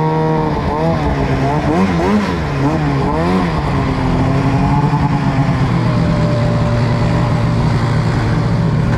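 Arctic Cat M800 two-stroke snowmobile engine with a BMP aftermarket exhaust can, revving up and down repeatedly as the throttle is worked. From about four seconds in, snowmobile engines run at a steady speed.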